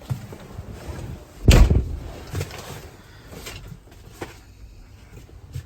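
Truck cab door slamming shut about one and a half seconds in, followed by a few lighter clicks and knocks from inside the cab.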